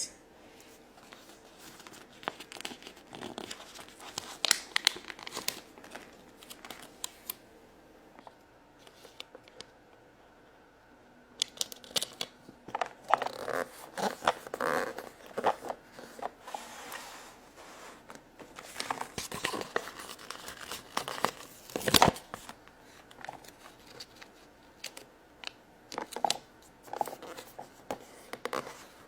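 Stickers being peeled from their backing sheet and pressed onto a plastic toy playset: scratchy peeling and rustling with small plastic clicks and taps, and one sharper knock about two-thirds of the way through.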